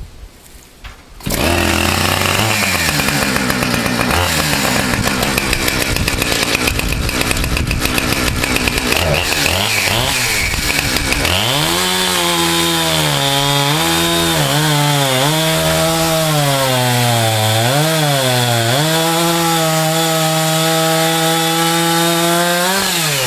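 Chainsaw engine starting up suddenly about a second in and running hard, with a lower, rougher stretch at first and then a higher steady pitch that dips and recovers several times. The chain has just been sharpened.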